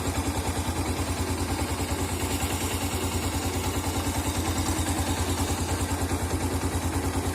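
Motorcycle engine idling steadily with an even beat, its timing chain no longer rattling now that the tensioner has been pushed in one click by hand: the sound is back to normal.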